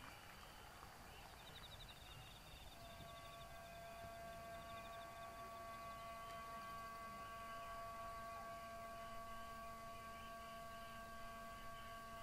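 Faint night-time outdoor ambience with high, rhythmic insect trills. About three seconds in, a held chord of several steady tones begins and continues.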